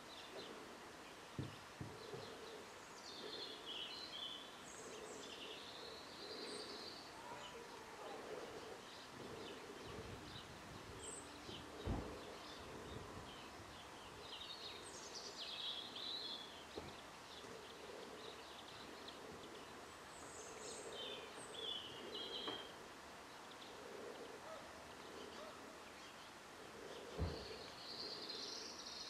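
Faint songs and calls of small garden birds in the background: short high phrases every few seconds over a steady outdoor hum. Three dull thumps stand out, about a second and a half in, near the middle and near the end.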